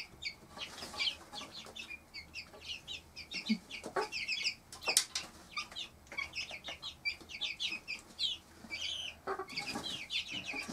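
Cuckoo Marans chicks about four weeks old peeping constantly in rapid, short high chirps, with a couple of sharp taps about four and five seconds in.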